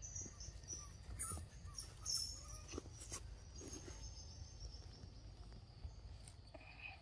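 Small birds chirping in short, high, thin calls over a steady high-pitched buzz, with a few sharp clicks in the first half.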